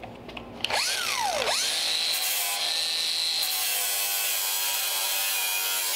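Angle grinder with a flap disc starting up about a second in, then grinding steadily along the hemmed edge of a Ford Model A steel door skin, wearing through the folded-over pinch weld so the skin can be taken off.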